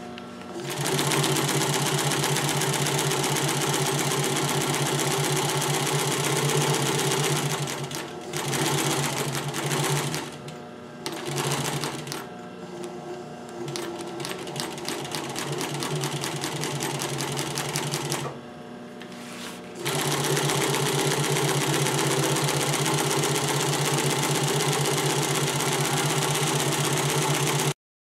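Pfaff industrial sewing machine stitching, a rapid even mechanical beat, its motor fitted with a smaller pulley to slow the sewing speed. It runs steadily, stops and restarts in short spurts about a third of the way in, runs more quietly and unevenly for a while, pauses for about a second and a half, then runs steadily again until it cuts off just before the end.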